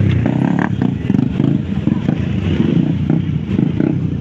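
Several motorcycle engines running at idle, a continuous low rumble.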